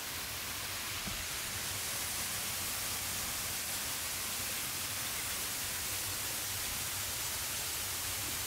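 Steady rushing hiss of a waterfall and mountain stream, unbroken and even throughout.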